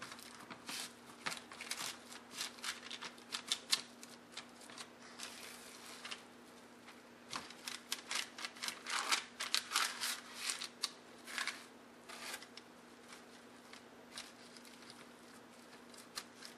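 Plastic wrap and parchment paper crinkling in quick irregular bursts as hands press and smooth a cheese pizza-crust mixture flat in a pizza pan. The crinkling comes in two busy spells and thins out toward the end, over a faint steady hum.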